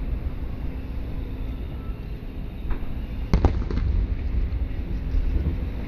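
Aerial fireworks shells bursting at a distance: a continuous low rumble of booms, with one sharp bang a little past three seconds in followed by a few smaller cracks.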